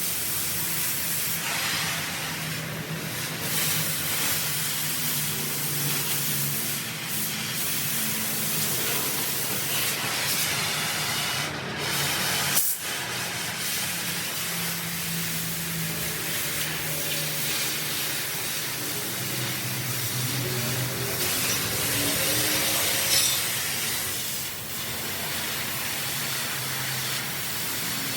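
Oxy-fuel cutting torch hissing steadily as it burns, with a faint low hum that shifts in pitch underneath and a single sharp knock about halfway through.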